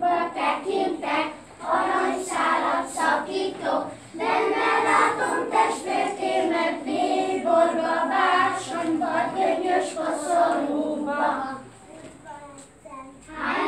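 A group of young children singing a circle-game song together, with a short break near the end before the singing picks up again.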